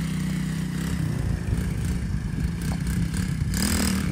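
Small dirt bike's engine running under throttle, its pitch wavering up and down as the rider lifts the front wheel. A short rush of hiss joins it near the end.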